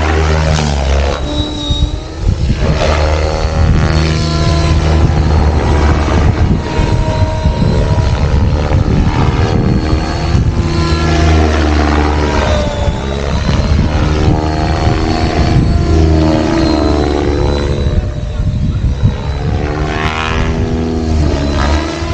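Electric 3D RC helicopter in flight: the rotor blades buzz and the pitch rises and falls again and again as it manoeuvres and passes by, over a thin steady high whine.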